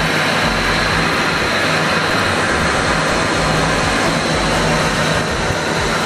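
Shark upright vacuum cleaner running on carpet: a steady rush of air with a thin high whine over it.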